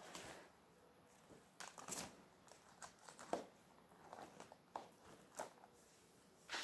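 Faint, irregular small clicks and rustles, a dozen or so short sounds scattered over a near-silent background.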